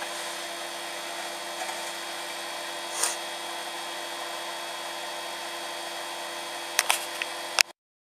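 Microwave oven running with a steady hum while a light globe heats inside it, with a brief crackle about three seconds in and a few sharp cracks near the end before the sound cuts off.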